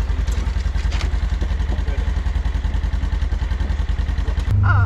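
A vehicle engine idling steadily, with an even low pulsing hum that gets louder near the end.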